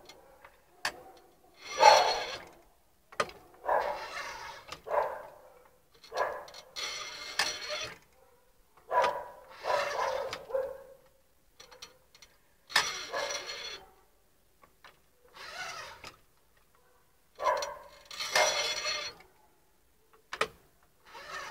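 Manual cylindrical silk screen printing machine being worked by hand: the screen carriage and print mechanism slide and knock in a series of short bursts, one every second or two.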